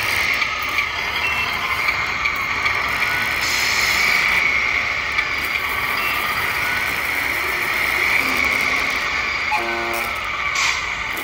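Whine of a Tamiya radio-controlled Kenworth W900 truck's drivetrain as it drives slowly, the pitch rising and falling with the throttle. A short pitched tone sounds near the end.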